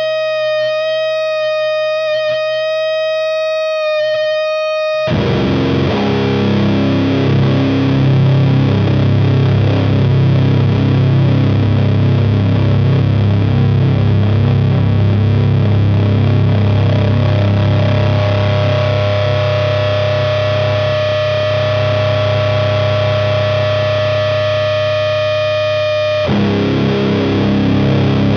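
Electric guitar (Fender Jazzmaster with Gibson P94 pickups) through the Burden high-gain fuzz/distortion pedal and an Ampeg V4B amp, playing long sustained drone notes. A held note rings at first. A heavy chord is struck about five seconds in and sustains for some twenty seconds, and another chord is hit near the end.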